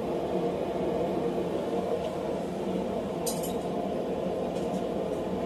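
Forge running with a steady, even rushing noise. A brief light clink about three seconds in.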